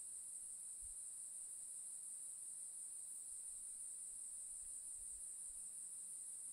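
Faint chorus of crickets: a steady, high-pitched chirring that does not break.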